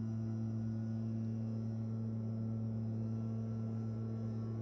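Backpack leaf blower's engine running at a steady speed, a constant hum with several overtones.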